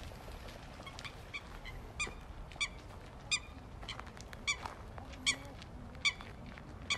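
Shoe squeaking with each walking step: short, sharp, high squeaks about every three-quarters of a second, beginning about two seconds in.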